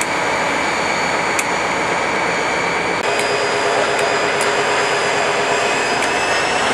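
Class 57 diesel-electric locomotive idling at close range: its turbocharged EMD two-stroke engine runs with a steady loud noise topped by a high turbocharger whine. In the second half the whine slowly rises in pitch.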